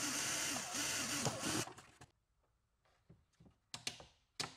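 Cordless drill boring a hole through a plywood bulkhead, its motor pitch wavering as the bit cuts, stopping about a second and a half in. A few sharp clicks follow near the end.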